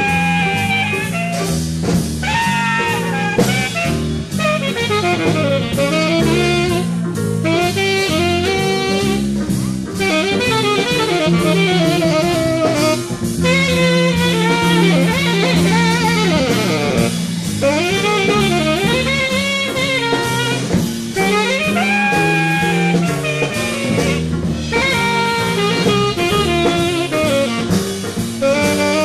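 Live jazz big band playing a blues, with a saxophone carrying the bending melodic line over drum kit and electric bass.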